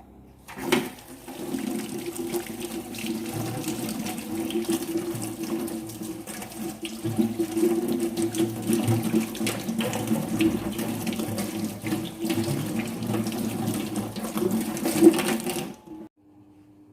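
Water running from a tap into a sink, turned on about half a second in and shut off abruptly near the end, with a brief louder splash shortly before it stops.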